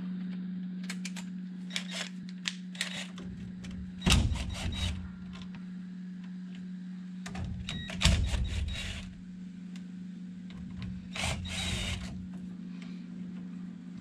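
Cordless drill-driver run in short bursts on the screws of an old steering column, about 4 s in, near 8 s and again near 11 s, with small clicks and knocks of parts being handled between runs. A steady low hum runs underneath.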